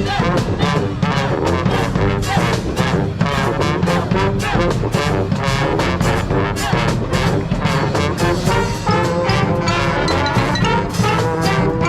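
Street brass band playing: trombones and trumpets carrying the tune over a steady beat.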